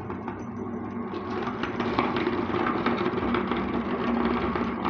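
Motor-driven metal meat grinder running steadily, with a dense crackling and crunching from about a second in as a pink bar of soap is fed in and crushed by the screw.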